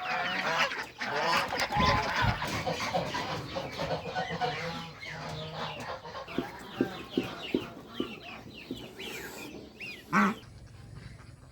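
A flock of geese and chickens calling together: honks and clucks over many quick, high peeps. One loud call stands out about ten seconds in, after which the calling quietens.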